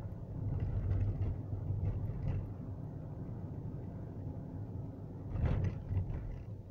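Car driving on a paved road, heard from inside the cabin: a steady low rumble of engine and tyres. About five and a half seconds in there is a brief, louder thump, with a smaller one just after.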